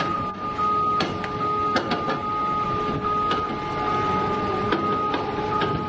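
Machinery of a large lattice-boom crawler crane whining steadily in a few fixed pitches, with irregular clicks and knocks over it.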